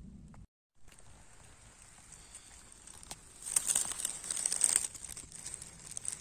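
Dry fallen leaves on a forest floor rustling and crackling, with a louder stretch of dense crackling lasting about a second past the middle. The sound cuts out completely for a moment near the start.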